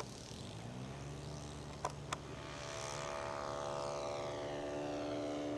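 Radio-controlled model SE5 biplane's Saito 120 four-stroke glow engine running steadily in flight, growing louder as the plane comes in. Two sharp clicks about two seconds in.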